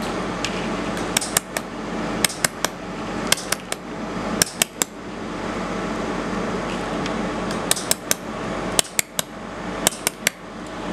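Pulsed laser spot welder firing on a thin metal lattice part: sharp clicks in quick groups of two or three, over a steady machine hum.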